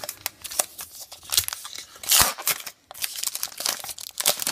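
Trading card pack wrapper being torn open and crinkled by hand, with irregular crackles and a louder rip about two seconds in.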